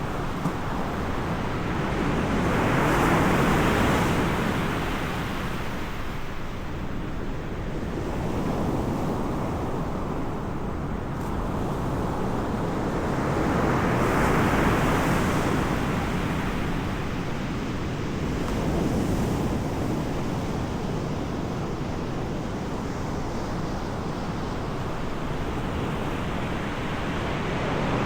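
Ocean surf: waves breaking and washing in slow swells about ten seconds apart, over a steady rumble of wind on the microphone.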